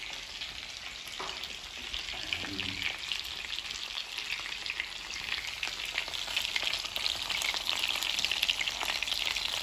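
Chicken thighs sizzling as they sear skin-side down in a hot frying pan: a steady crackle of spitting fat that grows louder in the second half.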